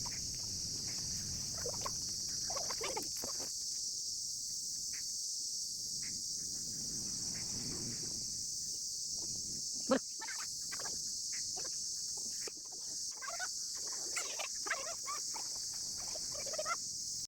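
Steady, high-pitched chorus of insects, with faint scattered sounds beneath it and a single sharp click about ten seconds in.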